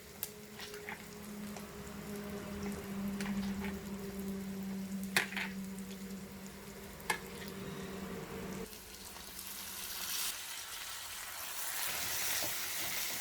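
Chopped tomatoes sizzling in oil in a kadai as they are stirred and pressed with a spatula, with a few sharp knocks of the spatula against the pan. A steady low hum stops about two-thirds of the way through, and the sizzling grows louder near the end.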